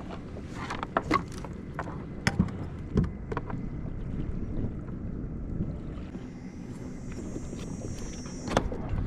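Scattered knocks and taps of gear against a fishing kayak over a steady low wash of water and wind, then a thin high whir for about two seconds near the end.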